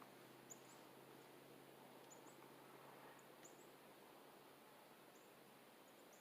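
Near silence broken by faint, high-pitched bird chirps, short and often in pairs, about once a second.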